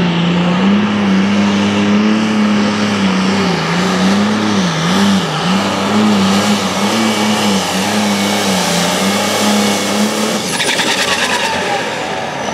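Modified diesel pulling tractor's engine running flat out under the load of a pulling sled, its pitch wavering and dipping several times, then cutting off suddenly about ten seconds in at the end of the pull.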